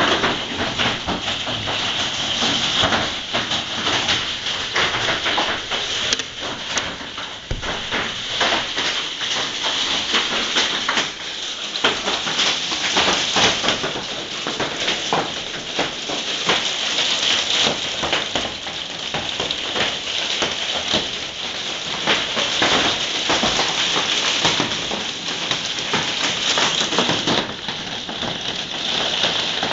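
Hail and heavy rain pelting down in a dense, unbroken clatter of many small impacts, steady for the whole stretch.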